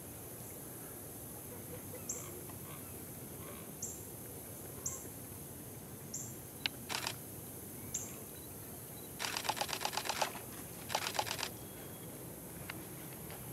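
Two bursts of rapid, evenly spaced camera shutter clicks, each about a second long, past the middle, as from a camera shooting in continuous mode. Faint short high chirps come now and then before them.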